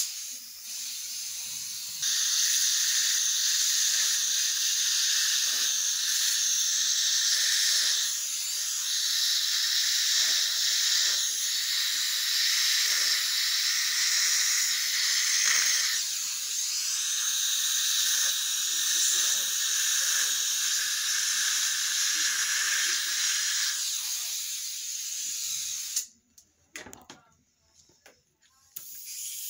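Dental suction tube hissing steadily in the patient's mouth while braces are fitted. The hiss grows louder about two seconds in and cuts off a few seconds before the end, leaving a few light knocks.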